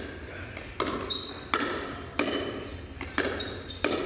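Pickleball doubles rally: about six sharp pops, roughly one every 0.7 s, as composite paddles strike the hollow plastic ball, with the odd bounce of the ball on the court. Each pop echoes in the big gym.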